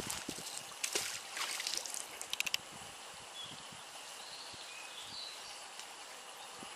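Canal water splashing and trickling as a magnet-fishing rope and magnet are worked in it. The loudest part is a few splashy bursts in the first two and a half seconds, ending in a quick run of about five clicks. After that there is a quiet steady outdoor wash with a few faint high chirps.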